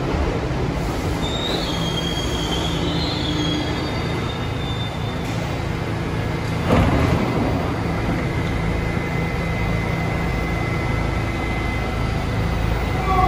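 New York City subway train running on the rails with a steady low rumble, its wheels squealing in high tones over the first few seconds. A single loud clank comes about seven seconds in, and a steady high whine holds after it.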